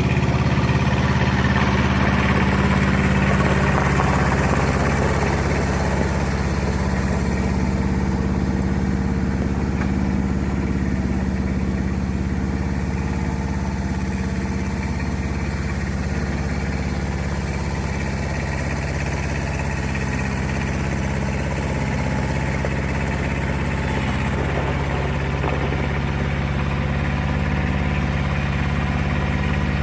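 An engine running steadily at an even speed, with no revving or stopping.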